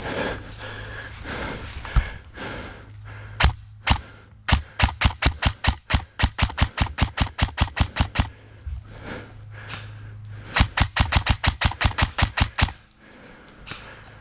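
Airsoft rifle firing: a few single shots, then two long strings of rapid, evenly spaced shots at about six to eight a second, each a sharp crack.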